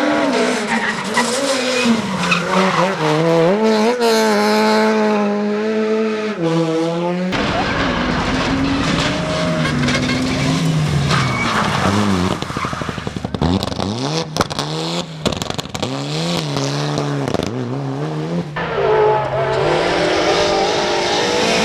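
Rally car engines revving hard, pitch climbing and dropping through gear changes, with a run of sharp cracks in the middle; the sound changes abruptly twice as one car gives way to another.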